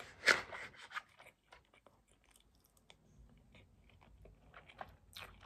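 Close-up eating sounds: soft chewing and small mouth clicks from a person eating rice and chicken. There is a brief louder noise just after the start and another near the end.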